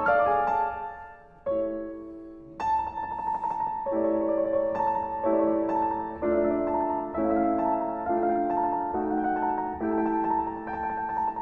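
Background piano music: chords changing every half second or so under a higher held note, fuller from about two and a half seconds in.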